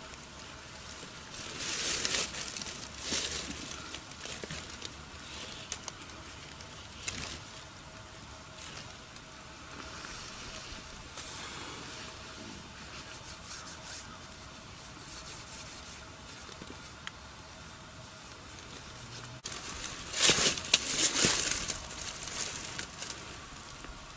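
Dry leaves and brush rustling in several short bursts over a faint steady hiss, the loudest burst near the end.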